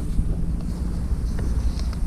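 Wind buffeting the microphone: a steady low rumble, with a couple of faint ticks near the end.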